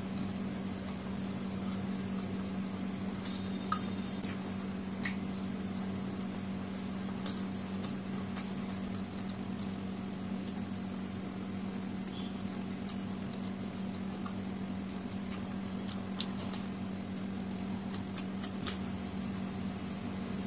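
Close eating sounds of fried chicken lollipops eaten by hand: scattered short clicks and smacks of chewing and fingers picking at the meat, about a dozen in all, over a steady low hum with a thin high whine.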